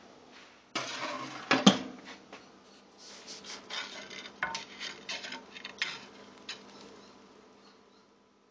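Clattering and scraping on a glass cutting board as a savannah cat paws and bites at a chicken finger on it. The loudest clatter comes about a second in, followed by scattered clicks and scrapes that die away about two seconds before the end.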